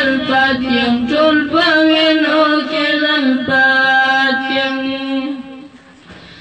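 A boy's voice singing unaccompanied into a microphone, a slow chant-like melody of long held notes, stopping about five seconds in.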